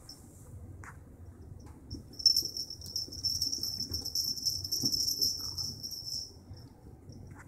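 A small bell on a kitten's collar jingling rapidly and high-pitched while the kittens scamper on carpeted stairs. It starts sharply about two seconds in and stops about two seconds before the end, with a few soft paw thumps.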